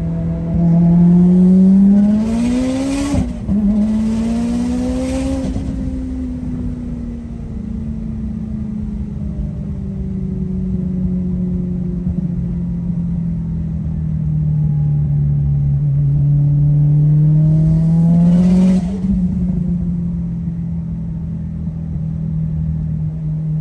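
Car engine heard from inside the cabin while driving. It climbs in pitch and shifts gear about three seconds in, then pulls a little more and eases off to a steady cruise. Near the end it climbs again and shifts once more.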